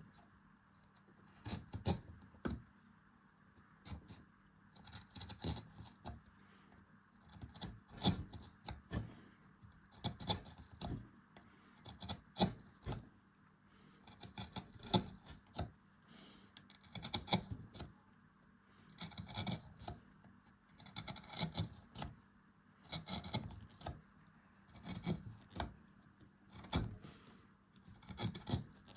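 Hand carving tool scraping and cutting into beech wood in short repeated strokes, about one to two a second, over a faint steady hum.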